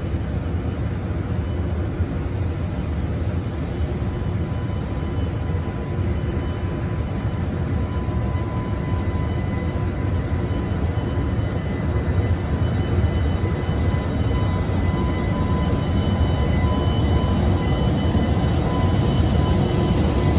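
JR Freight EH200 electric locomotive moving slowly with its freight wagons: a steady low rumble with a thin steady whine, growing louder over the last few seconds as it draws closer.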